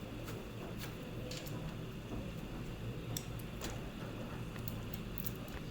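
Faint, scattered light clicks and ticks of hands working at the grounding cable connection of a hematology analyzer's CRP chamber, over a steady low hum.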